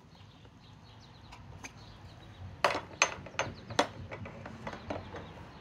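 Sharp clicks and taps of fuel lines being worked loose from the blower's plastic primer bulb, an irregular run of them with four louder ones close together in the middle.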